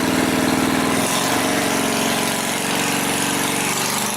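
Small single-cylinder 212cc Predator engine with its governor removed, running steadily; its note changes about a second in.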